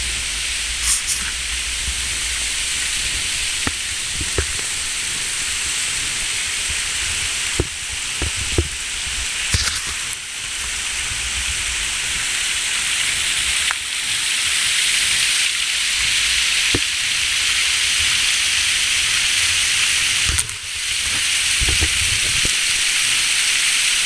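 Small waterfall and stream water rushing steadily over rock ledges, a continuous hissing splash that grows somewhat louder in the second half, with a few light clicks and knocks.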